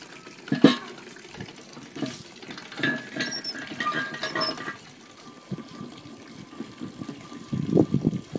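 Red wine trickling and splashing as it drains from a bladder wine press into a collecting bin, with a sharp knock about a second in and a few short squeaks around the middle.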